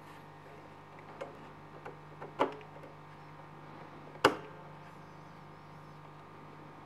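Small ticks and two sharp clicks, about two seconds apart, from hands handling the needle and presser-foot parts of a Bernette Sublime Chicago 7 sewing machine while threading it, over a faint steady hum.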